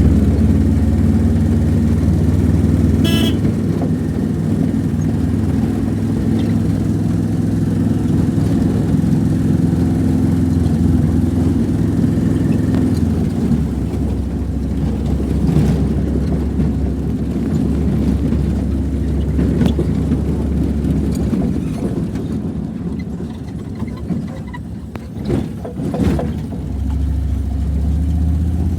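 Motor vehicle engine running steadily while travelling on a road, with a brief horn toot about three seconds in.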